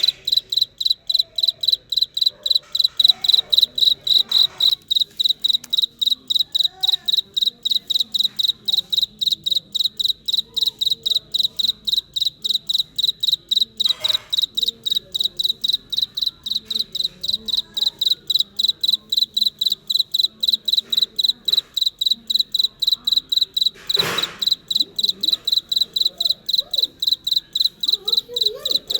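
A male cricket chirping steadily: an even run of high, clear chirps, about three a second. A few brief rustles cut in, the loudest about 24 seconds in.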